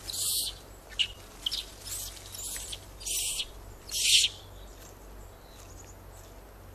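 Dry leaf litter rustling in short scratchy bursts as a Japanese macaque rummages through it with its hand, the loudest about four seconds in, then dying away.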